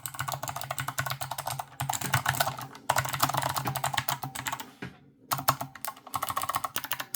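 Fast typing on a clicky Cooler Master 65% keyboard, dense runs of key clicks broken by a few short pauses.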